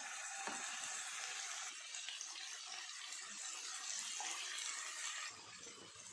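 Marinated chicken pieces sizzling as they go into hot oil with chopped onion, garlic and chili in a frying pan; the steady sizzle drops off about five seconds in.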